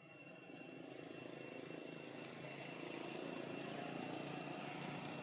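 A distant engine drone growing steadily louder, with two steady high whining tones running above it.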